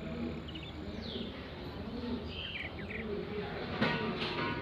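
House sparrows chirping in short bursts of high notes, with a sharp click about four seconds in.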